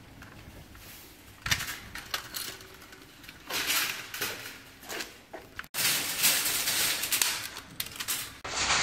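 Clicks and metallic rattles from a shopping trolley's coin lock and chain as a house key is worked in the coin slot and the lock is handled. The clicks are scattered at first; about two-thirds of the way in, a denser stretch of clatter and handling noise begins.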